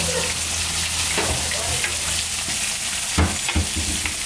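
Breaded snook fillets sizzling as they fry in oil in a pan, a steady hissing crackle. A few dull knocks come about three seconds in.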